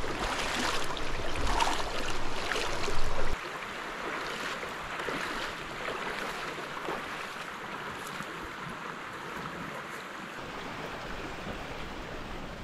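Shallow creek water rushing and splashing as a person wades across it. About three seconds in the sound drops suddenly to a steadier, quieter flow of the creek.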